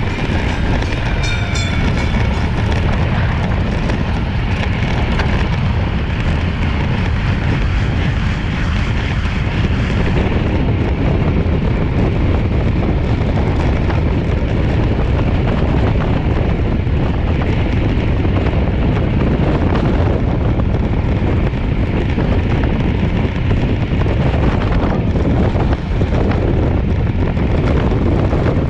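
Steady, loud wind rumble on the microphone of a camera mounted on a road bike racing at about 30 mph, with the rush of tyres on asphalt blended in.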